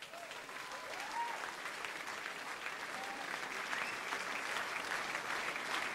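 Theatre audience applauding, the clapping building and growing louder after the act's music ends.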